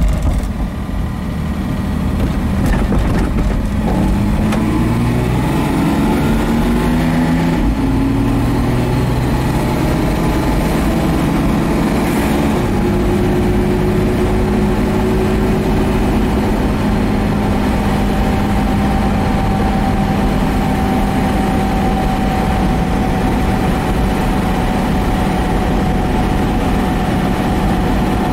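1965 Mercedes-Benz 230SL's straight-six engine, heard from inside the car, pulling away with its note rising through the automatic's gears. It shifts up about eight and about twelve seconds in, then settles into a steady cruise.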